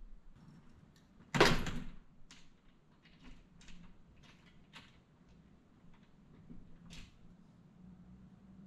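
Glass commercial entrance door opening with one loud clunk about a second and a half in, followed by a scatter of lighter clicks and taps.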